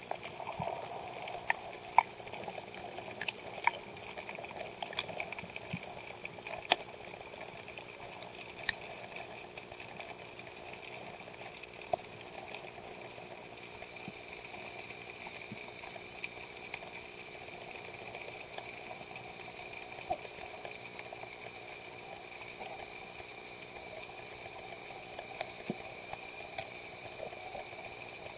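Muffled underwater sound heard through a submerged camera: a steady hiss with a faint hum, and scattered small clicks, most of them in the first nine seconds.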